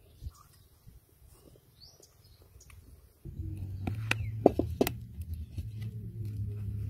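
Faint bird chirps, then a steady low rumble starting about three seconds in. About a second later come several sharp metallic knocks, some briefly ringing, as a large iron wok is set down onto a wood-fired bucket stove.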